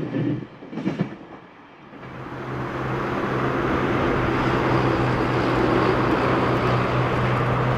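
The last wheel clicks of a passing train fade out in the first second. From about two seconds in, a train's steady rumble with a low, even hum swells up and stays loud.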